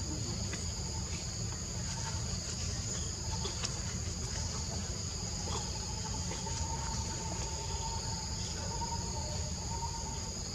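Steady high-pitched drone of forest insects, two unbroken shrill tones, over a low even rumble.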